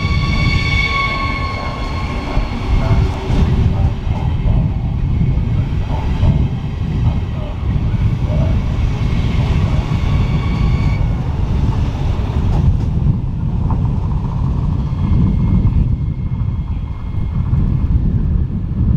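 Siemens Desiro HC electric multiple unit (RRX class 462) running past close by. The traction motors whine with several steady tones, loudest at the start and fading out after about eleven seconds, over a constant low rumble of wheels on the rails.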